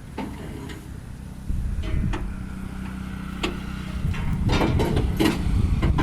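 Kubota DC-35 combine harvester's diesel engine running, getting louder about a second and a half in, with scattered metallic clanks and knocks that come thicker near the end.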